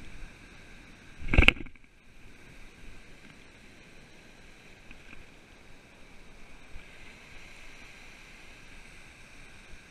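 Shallow surf washing around a wading angler's legs, with a brief loud rush of noise about a second and a half in.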